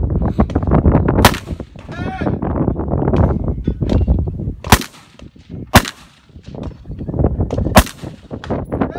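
Four loud gunshots from a competitor firing at a kneeling barricade port, spaced unevenly: about a second in, twice close together past the middle, and once near the end. Between them there is a steady low rumble that is loudest in the first few seconds.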